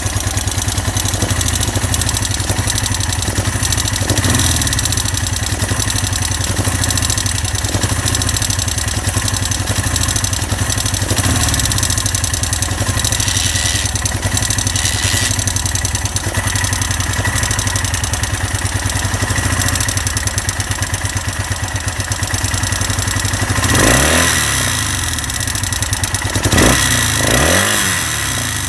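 Honda SL 175 parallel-twin four-stroke motorcycle engine idling with a rattling noise whose cause is unknown. The throttle is blipped a few times near the end, the pitch rising and falling back each time.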